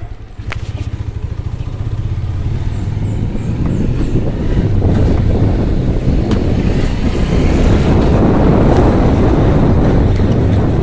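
Small motorcycle engine running while riding, with wind rushing over the microphone that grows louder from about two seconds in.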